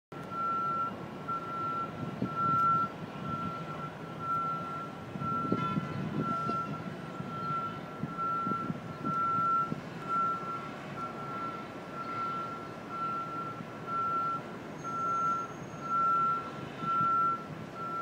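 Backup warning alarm on construction equipment beeping steadily, one single-pitched beep about every second, over a low rumble of machinery and city background.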